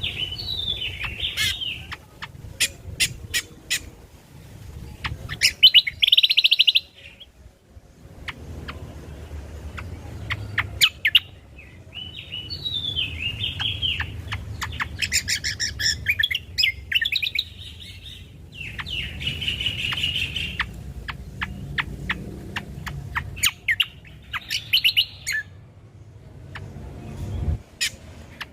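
Cucak kombo (kecial kombok) songbird singing its varied song: warbled, chattering phrases alternate with quick runs of sharp clicking notes, over a faint low rumble.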